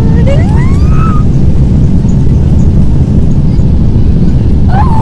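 Loud, steady low roar of an airliner cabin with its engines running, heard from a seat inside the plane. A person's voice rises in pitch in the first second, and another short vocal sound comes near the end.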